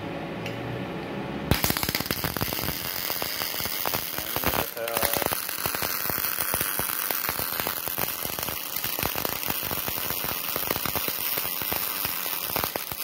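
MIG welding arc from a Multipro MIG-MAG 250NF G-KR inverter welder fed by an external wire feeder. It strikes with a sharp crack about a second and a half in, then crackles steadily and densely, with a brief break a little under five seconds in. It runs in 4T latching trigger mode, so the arc keeps going without the trigger held.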